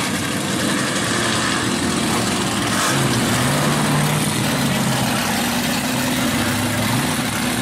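Engine of a mud-racing buggy running hard through the mud track, its note rising and falling as the throttle changes.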